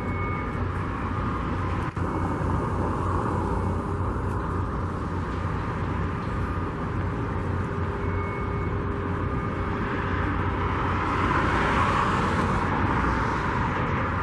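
Wind buffeting the microphone over a steady rumble of distant vehicles and machinery, which swells for a few seconds near the end.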